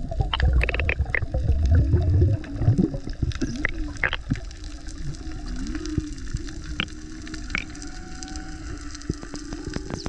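Water churning and bubbling hard around the microphone for the first two or three seconds. Then comes underwater sound: scattered sharp clicks over a steady, slightly wavering hum.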